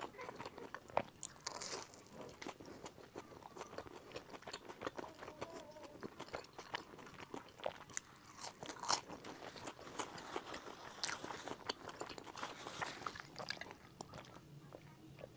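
Close-miked chewing and crunching of a sesame-coated glutinous pumpkin cake, with many small crisp crackles as the crust is bitten and chewed.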